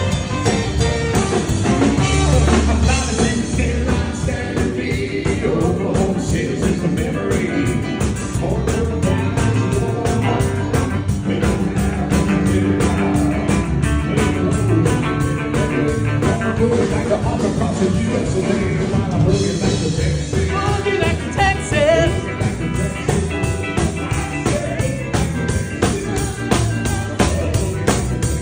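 A live band plays an upbeat rock-and-roll number during a sound check, with a steady drum beat and a singing voice.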